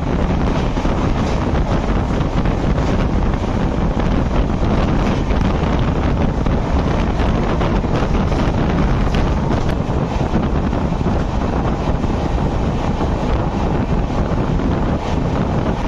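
Strong wind buffeting a microphone held out of the side of an express train's passenger coach running at speed, over the steady running noise of the train, with faint rapid ticks and clacks from the wheels on the track.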